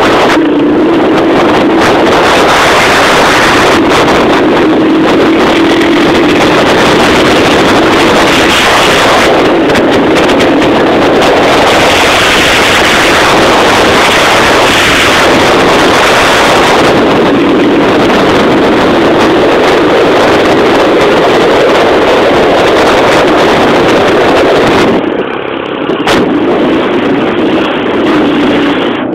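Honda 125 motorcycle engine running while riding, buried under heavy wind rush and buffeting on the microphone, loud and distorted. About 25 seconds in the wind hiss drops away and the level dips briefly.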